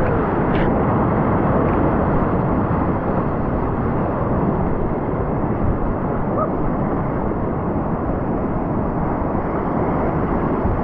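Steady rush of whitewater on a river rapid, with wind noise on the microphone.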